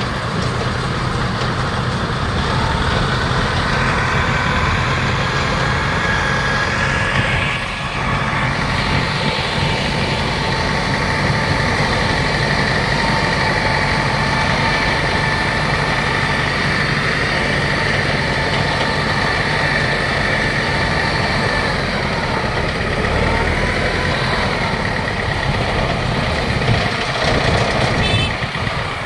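AG120 rice combine harvester running steadily at work, its engine and machinery giving a continuous rumble with a steady high whine above it.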